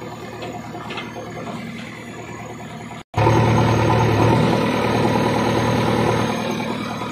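JCB 3DX backhoe loader's diesel engine running under the work of the backhoe, heard from inside the cab. After a brief dropout about three seconds in, it comes back much louder, with a strong steady low hum.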